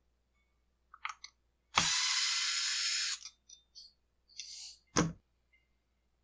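Power screwdriver running once for about a second and a half, backing out a screw that holds the engine to the plastic housing of a Husqvarna 125B leaf blower. A few light clicks come before it, and a sharp knock of the parts being handled follows about three seconds later.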